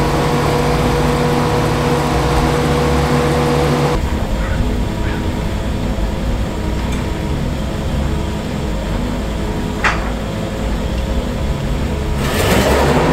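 An engine idling steadily, a low hum that holds one pitch throughout. There is a brief sharp click about ten seconds in, and a rushing noise swells up near the end.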